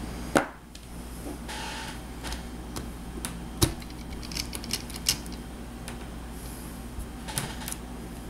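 Scattered light clicks and a few sharper knocks of hard plastic RC-car parts being handled as a wheel is fitted onto the axle of a 1/10 touring car.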